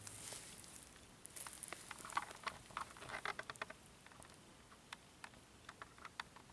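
Faint, irregular crackles and clicks of a plastic bag rustling as a kitten shifts about inside it, thickest between about one and four seconds in, then only occasional ticks.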